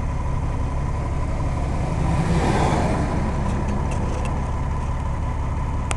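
Log truck's engine droning steadily, heard from inside the cab, while a loaded log truck passes the other way with a brief rushing swell about two and a half seconds in.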